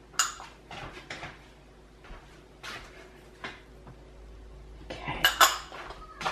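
Clinks and taps of small glass spice bowls against an enamelled pot as spices are tipped in: a handful of separate clinks, then a quicker run of them near the end.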